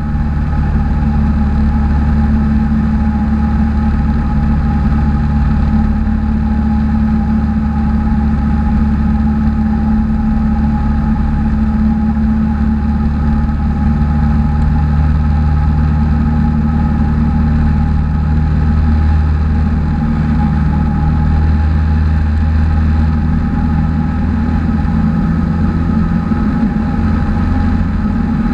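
Cessna 182's piston engine and propeller running in flight, a steady drone heard inside the cabin.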